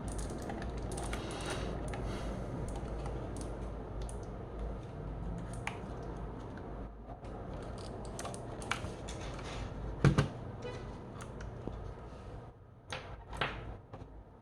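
Typing on a Keychron K1 SE low-profile mechanical keyboard: an uneven run of key clicks, with one louder knock about ten seconds in.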